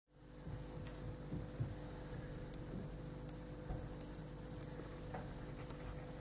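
A steady low electrical hum with four faint, sharp, high clicks spaced about three-quarters of a second apart near the middle.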